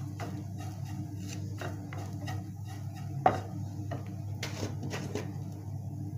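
Wooden spatula stirring and scraping grated coconut as it dry-roasts in a steel frying pan: irregular scrapes and rustles, with a sharper knock against the pan about three seconds in. A steady low hum runs underneath.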